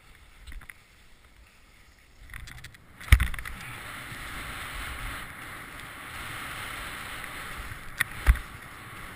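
Skis landing hard on packed snow off a jump about three seconds in, then hissing steadily as they slide fast over the snow, with two quick knocks near the end as they hit bumps.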